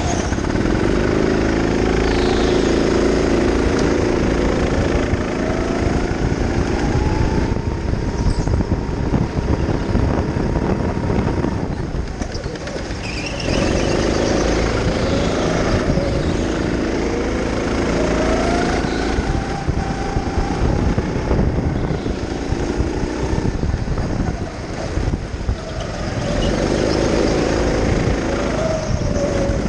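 Go-kart motor under the driver's seat, pitch rising as the kart accelerates down the straights and dropping as it lifts off for the corners, several times over.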